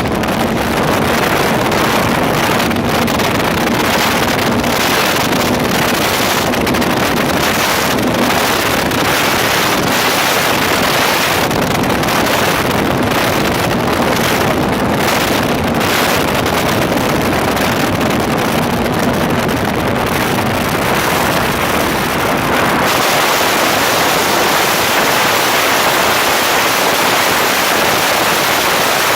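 Donzi speedboat running at speed: a steady engine drone under heavy wind noise on the microphone and rushing water. About 23 seconds in, the engine drone fades out and the wind and water rush take over.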